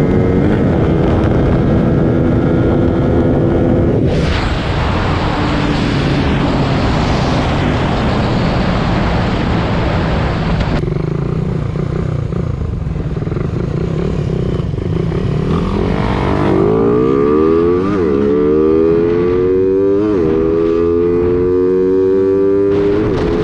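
Motorcycle engines running. There is a loud rushing noise for several seconds in the first half, and in the second half the engine pitch climbs steadily with brief breaks as they accelerate.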